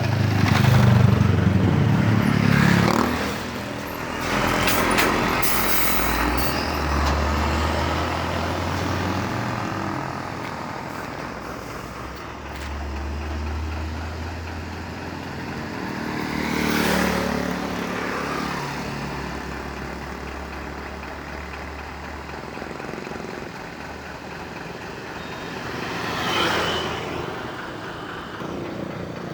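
Road traffic, with trucks and other vehicles passing close by: one about a second in, another around seventeen seconds, and a third near the end, with a low engine rumble between the passes.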